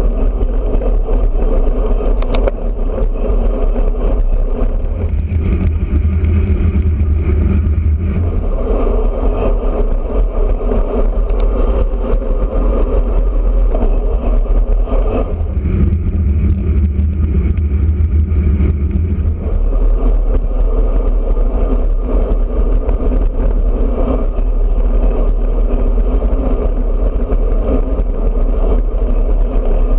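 Wind rushing over a road bike's handlebar-mounted camera at riding speed, with tyre and road noise, as a steady loud rumble. A deeper rumble swells twice for a few seconds.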